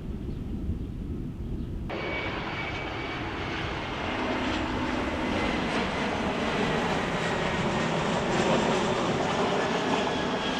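Low wind rumble, then about two seconds in a jet airliner's engines start abruptly: a steady roar with a high whine over it, growing louder toward the end as the plane passes close.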